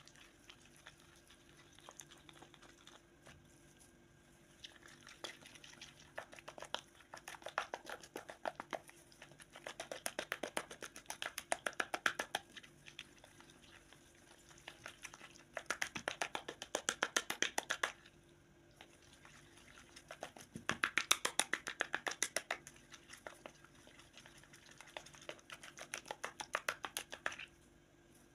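Plastic spoon stirring a thick, wet herbal paste in a plastic bowl: quick squelching, clicking strokes in several bursts of a few seconds each, with short pauses between.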